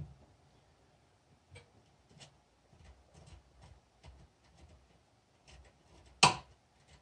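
Light metallic clicks and ticks as an M10 tap and tap wrench are handled and the tap is turned back out of a drilled spark plug body held in a steel bench vise. One sharp, louder metal clink comes about six seconds in.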